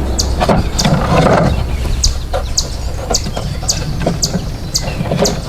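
A songbird chirping repeatedly, short high chirps about twice a second, over a steady low rumble. There is rustling and knocking in the first second and a half.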